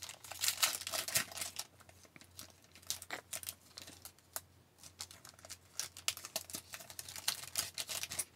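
Upper Deck hockey card pack wrapper being torn open and crinkled by hand, a quick irregular run of sharp crinkles and crackles with no pauses.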